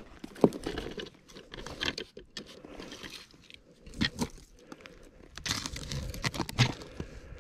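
A wooden ice-fishing tip-up being handled and lifted out of a slushy ice hole: irregular crunching of slush and ice and knocks of the wooden frame, with the sharpest knock about half a second in.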